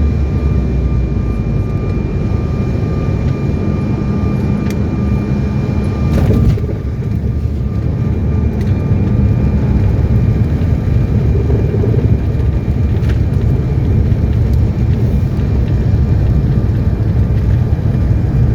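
Jet airliner landing: a loud, steady rumble with a thin high whine that stops about six seconds in, just after a short knock.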